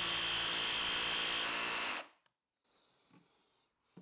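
Milwaukee M18 Fuel cordless jigsaw cutting through plywood, running steadily for about two seconds and then stopping, as it joins two drilled holes into a slot. A few faint clicks follow.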